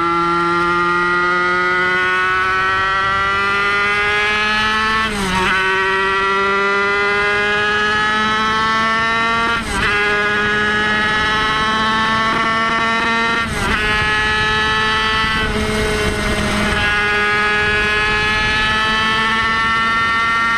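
Van Veen 50 two-stroke racing motorcycle engine at high revs, heard on board, pulling hard with the pitch climbing steadily and dipping briefly at four upshifts.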